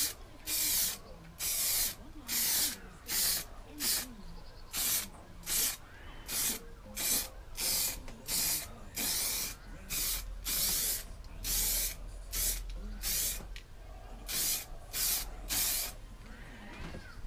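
Aerosol spray can hissing in short bursts of about half a second, one or two a second, as a coat of primer is sprayed on; the bursts stop near the end.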